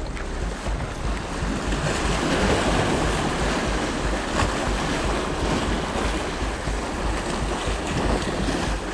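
Sea waves washing against the shore, with wind buffeting the microphone in a low rumble; the wash swells up about two seconds in.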